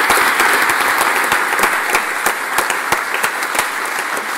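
Audience applauding, the clapping slowly fading and thinning out.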